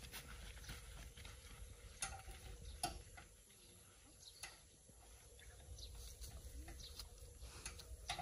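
Quiet outdoor ambience: a low rumble with a few scattered light clicks and taps, the sharpest about two and three seconds in.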